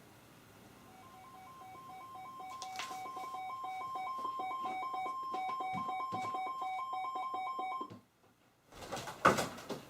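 Weather radio alert alarm: rapid electronic beeping on two alternating tones, growing louder over the first few seconds, then cutting off abruptly about eight seconds in. A few sharp knocks follow near the end.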